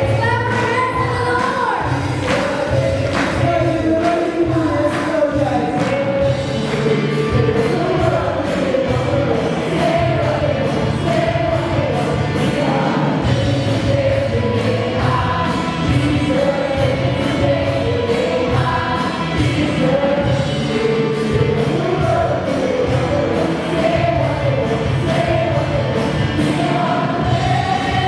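Congregation or choir singing a worship song with instrumental accompaniment and a steady beat.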